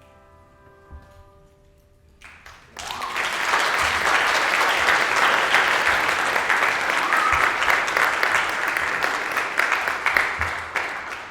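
The last notes of a handbell choir fade away, then about three seconds in a congregation breaks into steady applause that dies down near the end.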